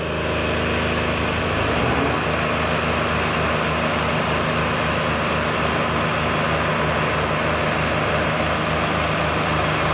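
Diesel tractor engines running hard under heavy load as two tractors pull against each other in a tug-of-war: a steady drone with a regular low throb.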